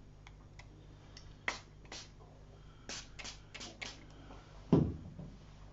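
Short squirts from a hand-held water spray bottle re-wetting watercolour paint that has dried: two single squirts, then a quick run of about five. A single loud low thump follows near the end.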